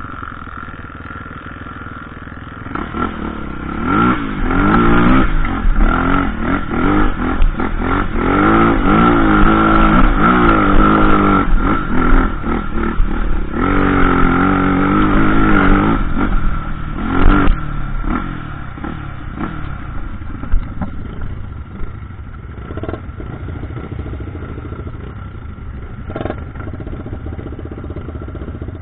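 Dirt bike engine revving hard and unevenly, its pitch rising and falling repeatedly for the first two-thirds. A few sharp knocks come about seventeen seconds in, then the engine drops back to a quieter, steadier run.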